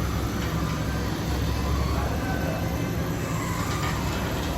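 Rotary fabric flocking machine running with a steady low mechanical hum and rumble.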